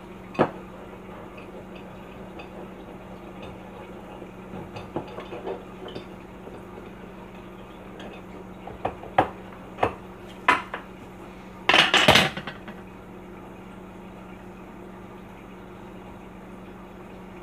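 Scattered sharp clinks and knocks of a metal wire cake leveler and kitchen utensils against the counter while a cake layer is being cut, with a louder clatter about twelve seconds in. A steady low hum runs underneath.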